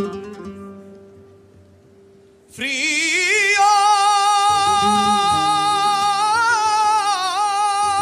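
A guitar chord rings out and fades on acoustic guitar, then about two and a half seconds in a male flamenco singer enters singing a fandango. His voice climbs in a wavering ornamented line and settles into one long high held note over soft guitar.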